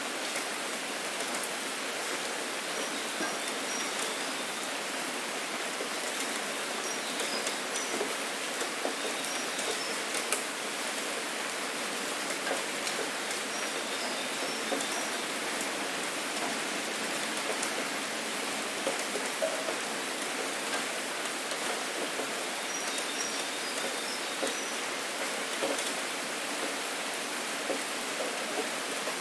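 Steady autumn rain falling, an even hiss of rain on surfaces dotted with many separate drop ticks.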